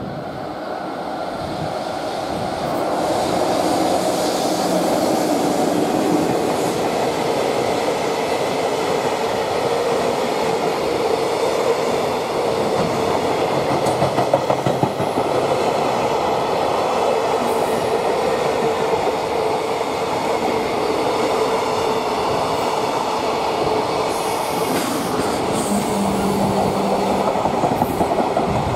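Freight train hauled by an EF66 electric locomotive running through, growing louder over the first few seconds as it arrives and then passing as a steady rumble and clatter of container wagon wheels on the rails, with a steady whine from the wheels.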